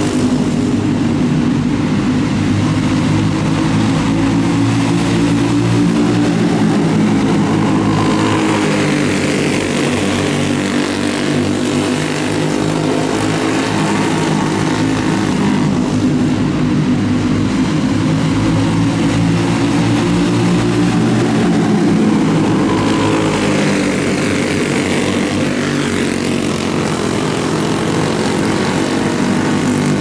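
Small single-cylinder clone engines of dirt-oval racing karts running at speed, a steady engine drone whose pitch rises and falls slightly as the karts go round the track.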